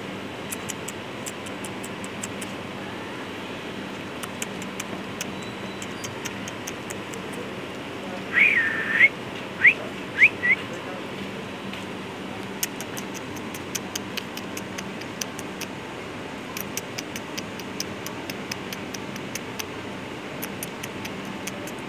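A person whistles: one short wavering whistle about eight seconds in, then two or three quick rising squeaky whistles, over a steady low hum and faint ticking.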